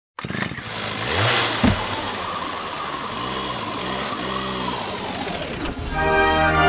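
Chainsaw engine revving and running as a sound effect, with a sharp hit about a second and a half in. Near the end it cuts off and brass theme music begins.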